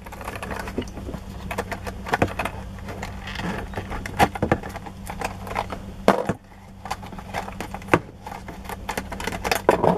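Small toy vehicles clicking and clattering as they are shaken out of a plastic toy tube and knocked down onto a hard tabletop, in many short irregular knocks.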